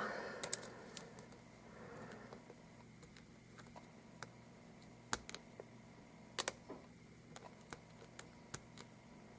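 Faint, scattered metallic clicks and ticks of a lock pick and tension wrench working the pins of an Abus 83/45 euro cylinder during single-pin picking, with two louder clicks about five and six and a half seconds in.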